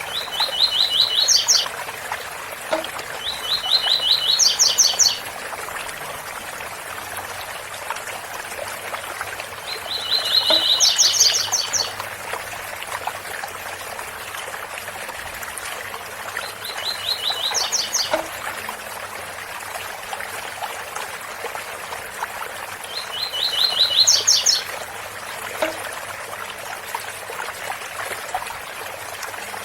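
Double-collared seedeater (coleiro) singing the 'tui tui bitola' song type: five phrases about six seconds apart, each a quick run of even notes ending in a few higher notes. A steady waterfall rushes underneath.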